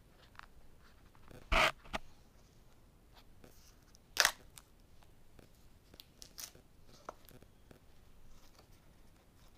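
Scattered rustles and scrapes of a product box being handled and worked at while it resists opening, with two louder sharp scrapes about a second and a half and about four seconds in.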